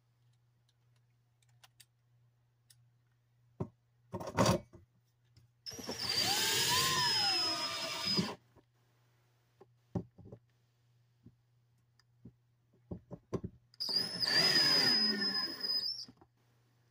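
Cordless drill driving screws up through a ceiling light fixture's base into the ceiling: a brief burst about four seconds in, then two runs of a couple of seconds each with a high whine. The motor's pitch falls as each screw draws tight.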